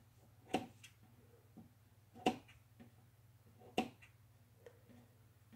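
Small spring-loaded thread snips cutting the warp threads off a cardboard loom. There are three faint, sharp snips about a second and a half apart, with fainter clicks between them.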